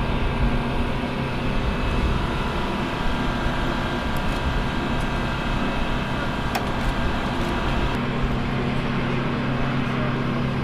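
Steady drone of aircraft engines running, with a strong low hum and several steady tones.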